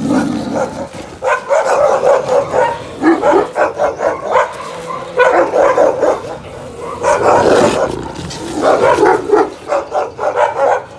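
Dog barking in repeated bouts of quick barks, with short pauses between the bouts.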